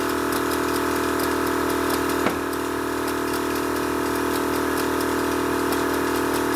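Air suspension compressor running with a steady hum as it fills the air bags to raise the car off its jack stands. A single short click comes a little over two seconds in.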